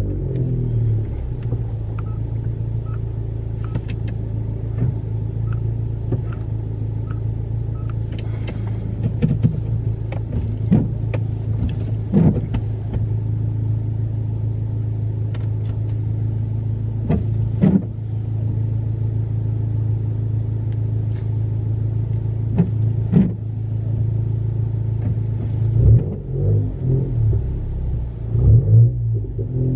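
Turbocharged four-cylinder Honda Accord with a muffler and resonator delete, straight-piped from the front pipe back, droning steadily at a constant engine speed, with scattered sharp knocks and clunks. Near the end the engine note rises and falls unevenly.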